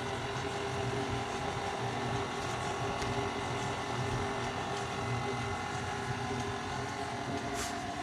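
KitchenAid stand mixer running steadily, its motor humming as the beater turns the dry bread ingredients in the steel bowl.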